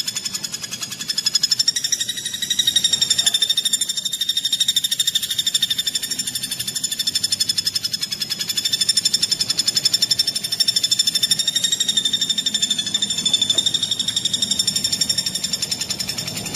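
Recorded songbird song for masteran training: one continuous, very fast, tightly packed trill, high-pitched and slightly wavering, without pauses.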